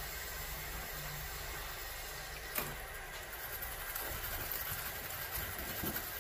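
A lathe running while a gouge cuts a spinning block of UHMW plastic, peeling off long ribbons of shavings. The cut makes a steady hiss over the motor's hum, with one sharp tick a little over two seconds in and a rougher, crackling cut after that.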